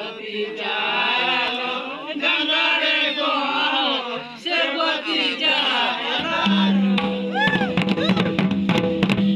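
A group of men chanting a Santali Sohrai song in unison. About six seconds in, a steady low tone comes in, and then the drums start: double-headed tumdak' barrel drums played by hand and tamak' kettle drums beaten with sticks, in a fast, dense rhythm.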